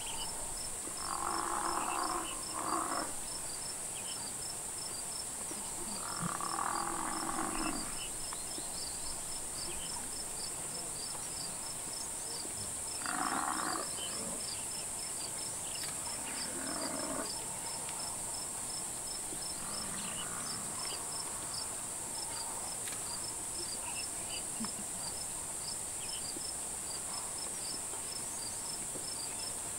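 About five short, hoarse animal calls in the first two-thirds, from the lions and the African buffalo they are attacking, over a steady high insect drone and fast, even cricket chirping.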